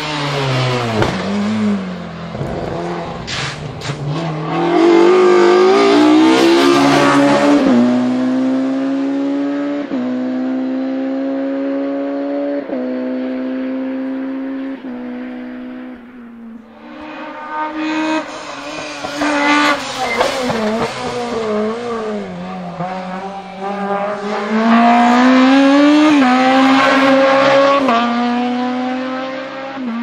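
Two hillclimb race cars in turn, each accelerating hard uphill: the engine pitch climbs and drops at each quick upshift. The first car passes close by and fades away up the road. After a short gap a second car, a Honda Civic hatchback, comes up towards the listener, revving high through its gears.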